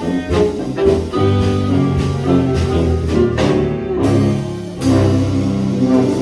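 Live early New Orleans-style jazz band playing, with saxophone and a sousaphone bass among the instruments, in what sound like the closing bars of a tune: long held notes from about five seconds in, just before the applause.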